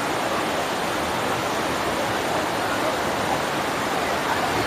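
Shallow rocky stream flowing over and between boulders: a steady, even wash of running water.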